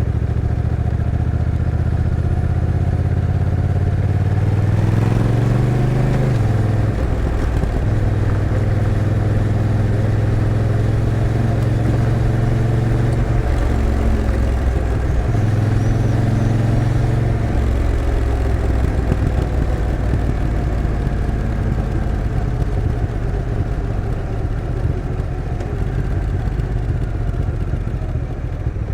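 Honda NT1100's 1,084 cc parallel-twin engine under way, heard from the rider's seat through the stock exhaust. The engine note climbs over the first few seconds, then drops abruptly about six seconds in as the dual-clutch gearbox shifts. The pitch steps a few more times, then the engine runs steadily.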